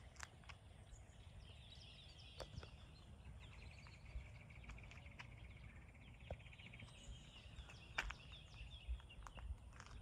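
Near silence: faint outdoor ambience with birds singing, including a rapid trill in the middle, scattered light footsteps and a low rumble.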